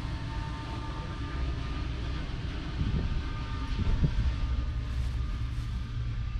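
Fendt 516 Vario tractor's 4.0-litre four-cylinder diesel engine running steadily with a deep rumble, with two short knocks about three and four seconds in.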